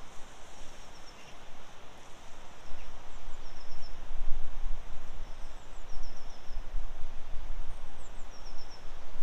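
Outdoor ambience with wind rumbling on the microphone, stronger from about three seconds in. A small songbird sings three short phrases of three or four quick high notes.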